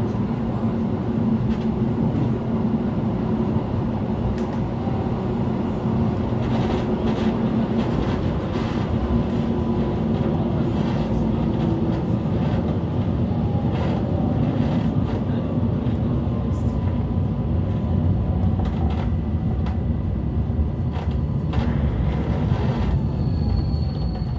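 Inside a moving city train carriage: a steady low rumble of wheels and running gear on the track, with scattered short clicks and knocks and faint whines that glide in pitch. A high thin tone starts near the end.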